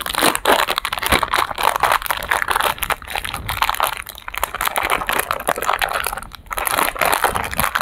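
Plastic ice cream bar wrapper crinkling and crackling as it is handled and peeled open, with a brief lull about six seconds in.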